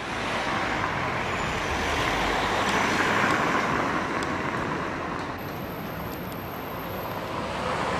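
Road traffic noise from passing vehicles, swelling to a peak about three seconds in and then easing off.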